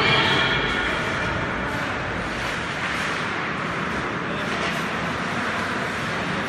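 Steady rushing noise of ice hockey play in a rink hall, with skates scraping on the ice.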